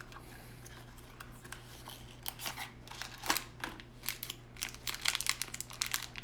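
Crinkling and crackling of packaging being opened by hand as a mystery pin box is unwrapped, with scattered small clicks that grow busier over the last few seconds.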